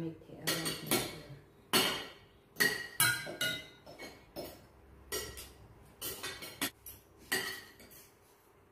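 Spoons and forks clinking against ceramic plates during a meal: a dozen or so irregular clinks, each with a brief ring, dying away near the end.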